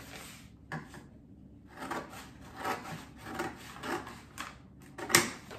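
Paper bags rustling and scraping as they are handled and cut down, in a run of short strokes about half a second apart, with a sharp click near the end.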